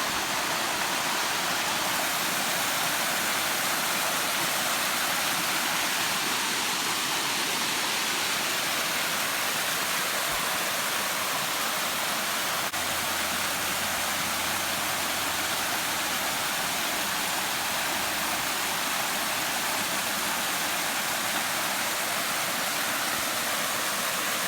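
Steady, unbroken rush of flowing creek water, like a small waterfall or cascade.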